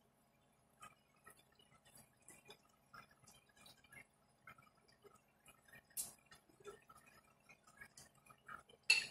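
Pot of pakbet vegetable and pork stew simmering, with faint, scattered small pops from the broth and a metal spoon dipped in to taste it. There is a sharper click about six seconds in and a louder clink of metal utensils near the end.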